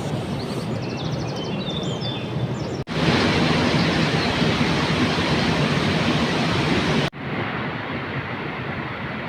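Steady outdoor rushing noise, like running water or wind, broken by two abrupt cuts; the middle stretch, from about three to seven seconds in, is louder and brighter. Faint high chirps sound during the first couple of seconds.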